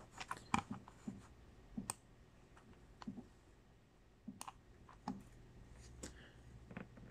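Computer mouse clicking: a handful of sharp, separate clicks at irregular intervals, quiet overall.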